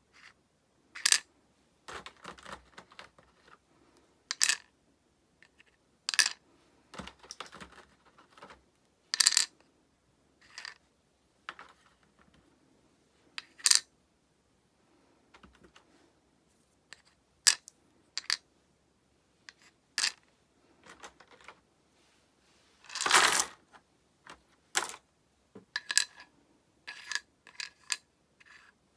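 Small hard plastic pieces clicking and clacking against each other and their case as they are handled, in a string of separate sharp knocks at uneven intervals. There is a longer, louder clatter about three quarters of the way through.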